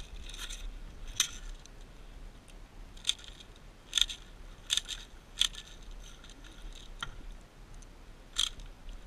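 Airsoft guns firing single shots, heard as about eight sharp snaps at irregular intervals.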